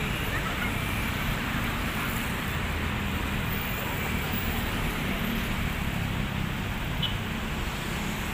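Steady road traffic noise, an even rumble and hiss with no single vehicle standing out.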